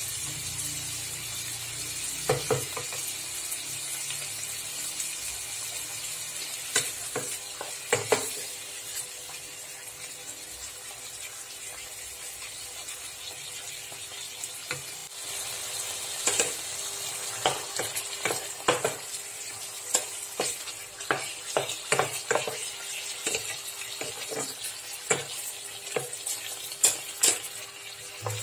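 Chicken pieces and garlic sizzling in a frying pan, with a wooden spatula stirring and knocking against the pan. The knocks come more often in the second half.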